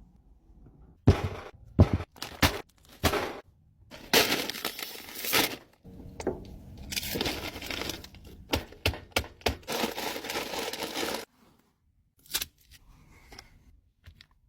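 Food packaging being torn open and crinkled. Sharp crackles come first, then a long stretch of steady crinkling that cuts off suddenly about eleven seconds in.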